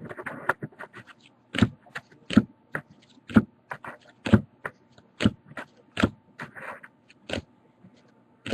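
Trading cards being flipped through one at a time from a pack, each card giving a short crisp slide and snap, about once a second.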